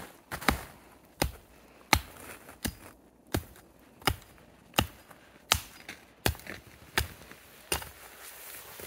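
An axe chopping into the trunk of a small spruce at its base: about eleven sharp, evenly spaced blows, a little under one and a half a second, stopping shortly before the end.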